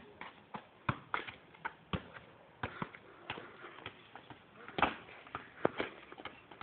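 A football being kicked and bouncing on an asphalt street: a run of sharp thuds, one or two a second and unevenly spaced, the loudest just before five seconds in and again a little later.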